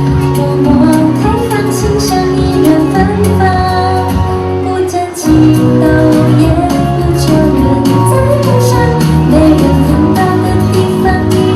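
Pop song backing music with a steady beat, an instrumental passage between sung verses; it drops briefly about five seconds in and comes back fuller.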